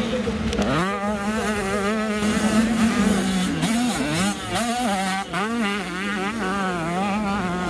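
Motocross bike engine revving hard: its pitch climbs sharply about a second in, then stays high and rises and falls with the throttle as the bike is ridden through the turns.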